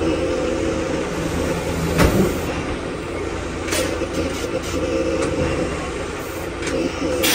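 Semi truck's diesel engine running steadily, with a sharp clunk about two seconds in and a couple of fainter knocks later.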